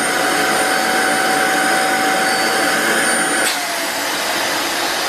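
Small corded electric pump running on the valve of a vacuum storage bag, sucking the air out: a steady whirr with a high whine. About three and a half seconds in there is a click and the whine drops a little in pitch.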